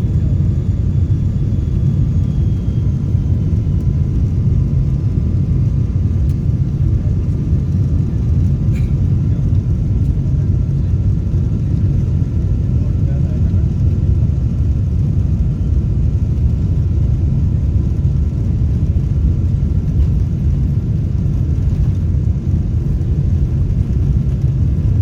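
Jet airliner heard from the cabin, its engines running: a steady low rumble with faint steady whining tones above it, neither rising nor falling.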